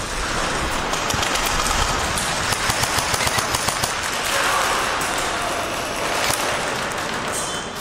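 Airsoft guns firing in rapid bursts of sharp clicking shots in a large indoor hall, with players' voices among them.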